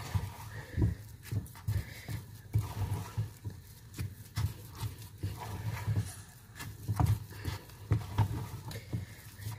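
Wooden spoon stirring and pressing thick rice fufu dough in a non-stick saucepan on a gas hob: irregular dull thumps, about one or two a second.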